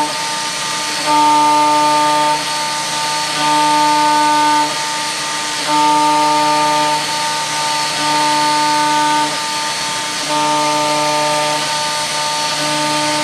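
Vertical machining centre milling a refractory mould: a steady high hiss, with a pitched machine whine that sounds for about a second and cuts out again, six times at even spacing of about two seconds.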